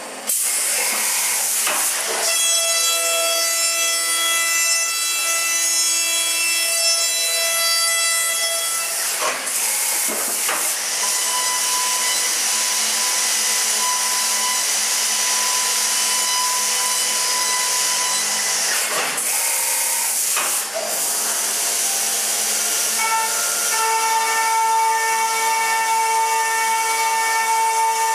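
Brother Speedio S1000X1 CNC machining centre milling an aluminium casting: a loud, steady hiss of cutting and coolant spray with high spindle whine tones. The whine changes pitch several times as the cuts change, through finish facing with an 80 mm face mill and grooving with a 20 mm end mill.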